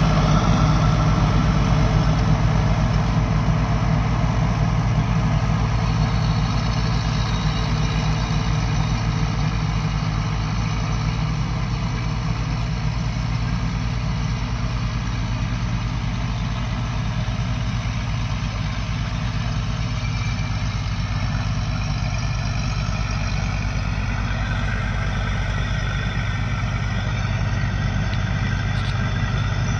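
Farm tractors' diesel engines running steadily under load while driving rotavators through the soil, a continuous low drone. It grows somewhat louder near the end as the blue Sonalika comes close.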